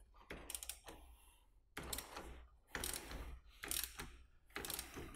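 Threaded compression hose-end fitting being turned tight onto a fuel hose while held in a vise: five short clicking strokes about a second apart.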